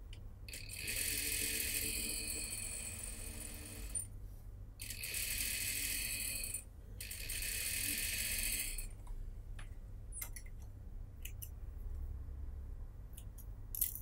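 Single-needle lockstitch sewing machine stitching a seam, running in three spurts of about two to four seconds with short stops between. In the last few seconds the machine is silent and a few light clicks follow.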